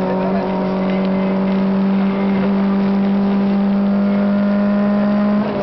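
Citroën AX GTi rally car's four-cylinder engine heard from inside the cabin, running hard at high revs with its pitch slowly climbing, then a brief dip near the end, an upshift, after which the pitch is lower.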